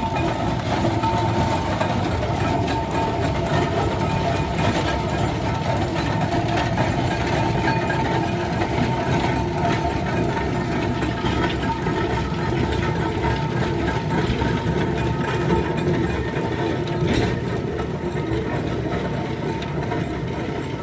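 Fowler steam ploughing engine travelling along the road, a steady, unbroken mechanical clatter and running noise with a faint steady whine.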